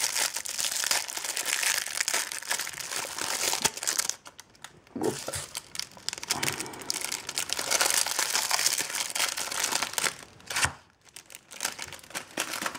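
Clear plastic wrapping crinkling and crackling as it is pulled off a bundle of trading-card booster packs and promo cards. It comes in two long stretches with a short pause about four seconds in.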